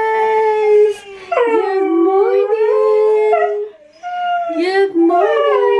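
Pet dog howling: long, held, wavering notes in three howls, with short breaks about a second in and near four seconds in.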